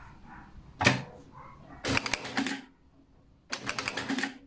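Bruce R5 industrial lockstitch sewing machine stitching fabric in two short, fast runs of rapid clatter, after a single sharp clack about a second in.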